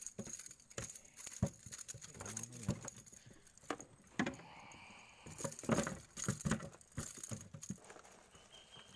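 Irregular knocks, taps and light rattles on a small boat's deck as a freshly caught barracuda and fishing gear are handled, with a brief rustle near the middle.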